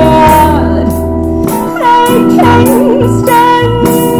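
Live band playing a soul cover song: drum kit with regular cymbal hits, bass guitar and guitars, with a held, wavering melody line on top.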